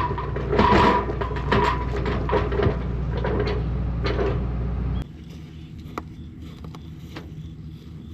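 Farm vehicle engine running with clanks and rattles. About five seconds in, the loud low engine sound cuts off suddenly, leaving a quieter low hum and a few clicks.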